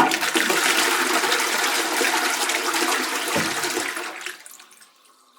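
Toilet flushing: a sudden rush of water that runs steadily for about four seconds, then drains away and fades out.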